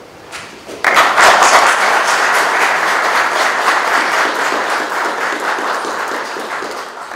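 Audience applauding, starting suddenly about a second in and slowly dying down toward the end.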